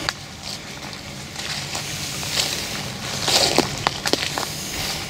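Footsteps pushing through undergrowth, with leaves and brush rustling in uneven bursts and a few sharp cracks about four seconds in.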